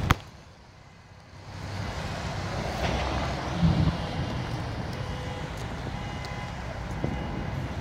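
Cars driving through a wet parking lot: steady engine and tyre noise that swells about a second and a half in, after a brief quieter moment that follows a sharp click at the start.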